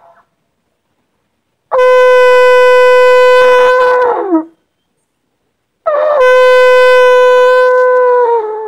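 Shofar blown by a learner in practice: two long held blasts, each on one steady note with a bright, buzzy edge. Each blast sags in pitch as it ends, and the first turns rough just before it stops.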